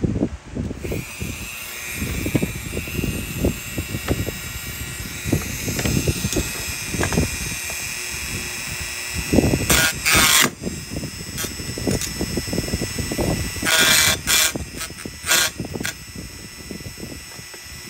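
A small electric power tool running with a steady high whine, over irregular knocks and rattles of metal parts being handled. There are two harsher, louder spells about ten and fourteen seconds in.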